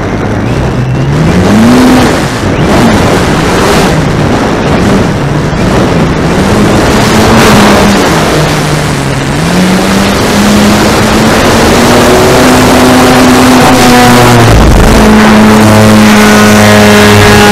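RC aerobatic airplane's motor and propeller heard from an onboard camera. The pitch rises and falls as the throttle changes, then holds steady over the last few seconds. Heavy wind rush on the microphone runs under it.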